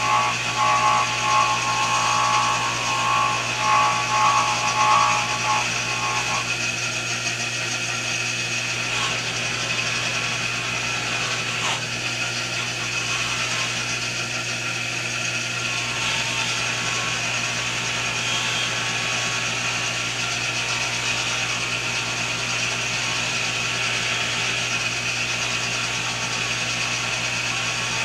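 Electric bench buffer running steadily with a 3-inch buffing wheel while a brass lamp part is pressed against it. For roughly the first six seconds a pitched whine swells and fades as the brass works against the wheel; after that it settles into an even running hum and buffing hiss.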